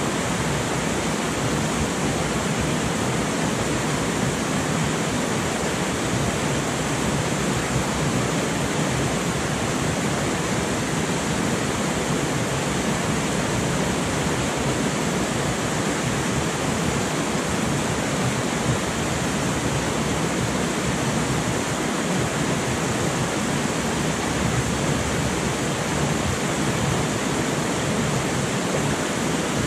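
River rapids rushing over rocks: a steady, unbroken roar of white water.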